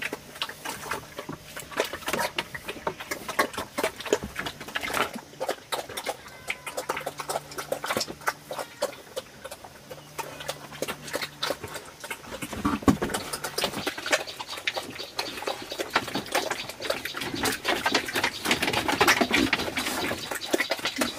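Animal sounds: a dense run of irregular clicks and smacks that grows busier near the end.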